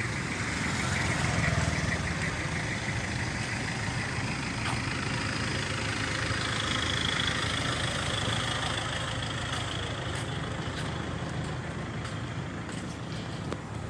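Heavy truck's diesel engine running steadily at idle, a low rumble.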